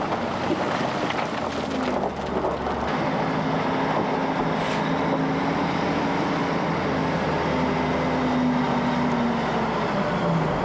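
Heavy road-construction machinery engine running steadily: a low drone over rough mechanical noise.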